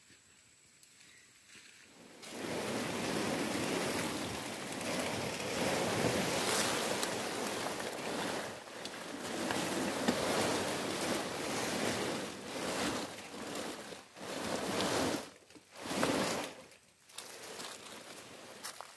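A large plastic tarp rustling and scraping as it is dragged and spread over the ground, a loud rushing noise that starts about two seconds in, swells and dips, and breaks into short bursts near the end.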